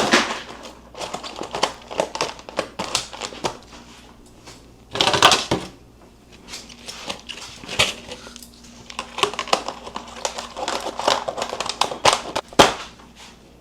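Plastic lids being pressed and snapped onto plastic meal-prep containers: a run of clicks and crinkles, with a louder crinkling rustle about five seconds in.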